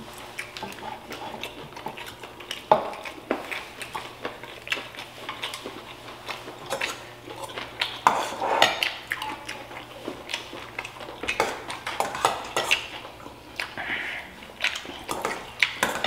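Spoons clinking and scraping against ceramic and stainless steel bowls and plates during a shared meal: irregular clinks and taps, the sharpest about three and eight seconds in.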